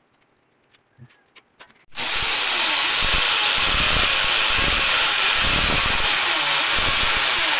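Electric drill with a small bit boring into a wall, starting about two seconds in and running loud and steady, its motor pitch wavering slightly under load. Before it, a few faint clicks and taps.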